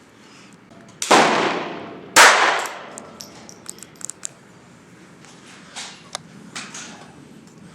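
Two shots from a J-22 .22 LR semi-automatic pistol about a second apart, each with a ringing echo, followed by a few faint clicks. The pistol then stops firing, a failure to feed on the next round.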